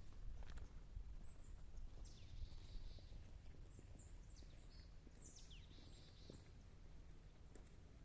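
Faint outdoor ambience: a steady low rumble with a few short, high bird calls that slide downward in pitch, most of them in the middle of the stretch.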